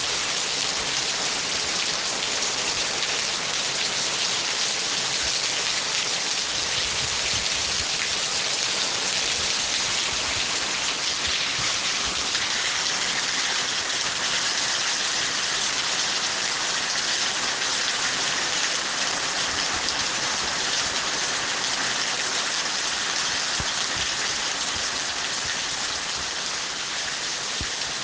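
Steady heavy rain falling, an even hiss of drops with no break in it.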